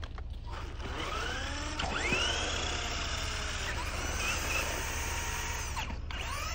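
Electric motor of a Redcat Volcano RC monster truck whining as it is throttled up and down while driving over snow, rising in pitch several times and dropping sharply near the end.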